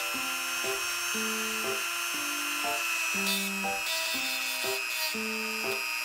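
Background music with a stepping melody over the steady high whine of a power tool spinning a brass wire brush to strip rust from steel, with a few short scraping bursts about halfway through.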